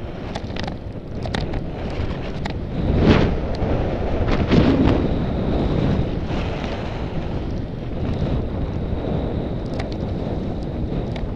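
Wind buffeting the microphone of a camera moving down the street: a steady low rush with a few short clicks, swelling briefly about three and four and a half seconds in.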